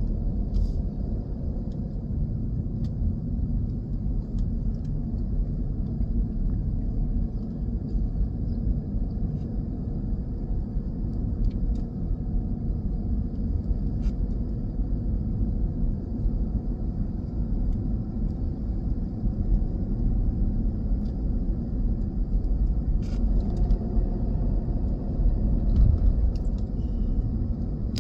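Steady low rumble of a car driving, with road and engine noise heard from inside the vehicle, and a few faint clicks.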